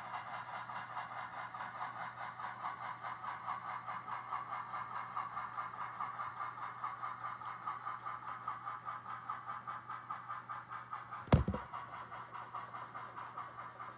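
HO-scale narrow-gauge model train running on its track: a steady, rapidly pulsing whir. About eleven seconds in, one sharp, loud knock as the filming phone crashes into the layout's scenery.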